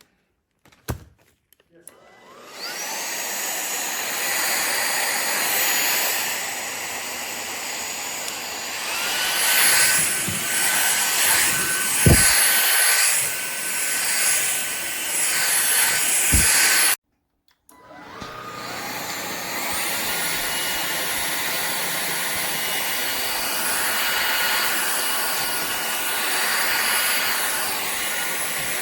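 Powerffy N10 cordless stick vacuum switched on, its motor spinning up with a rising whine and running with a high, steady whine. The sound varies for a while with a couple of knocks. It is switched off suddenly about two-thirds of the way in, then started again at once, spinning up and running steadily.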